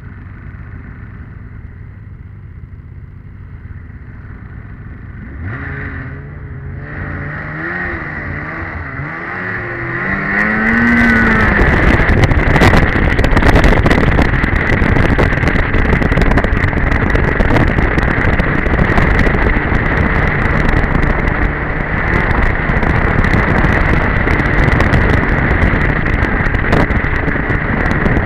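Two-stroke engine of an '02 Polaris Edge snowmobile running at low speed, revved up and down from about five seconds in, then pulling away with a rising pitch near ten seconds and running hard at speed, loud and steady with a constant high whine.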